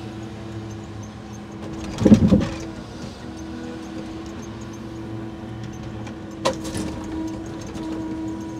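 A truck-mounted timber crane runs with a steady hum while its grapple sets a bundle of wooden ground mats down onto a stack. The timbers clatter together loudly about two seconds in. Later a single sharp knock comes as the grapple meets the next load of timber.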